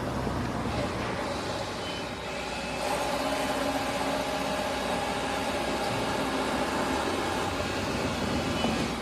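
Street traffic ambience, with a large vehicle's steady hum rising out of the traffic noise about three seconds in and fading near the end.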